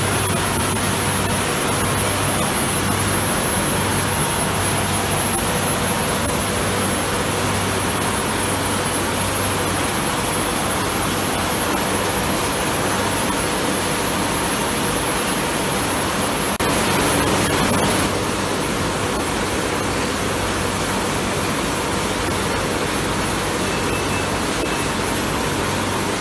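Can sleeving line with a sleeve applicator and shrink tunnel running on 500 ml beer cans: a steady rushing noise with a low hum, rising briefly about sixteen seconds in.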